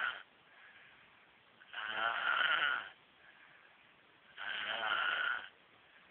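A sleeping person snoring in slow, even breaths: two full snores of about a second each, roughly two and a half seconds apart, after the tail of a previous one at the very start.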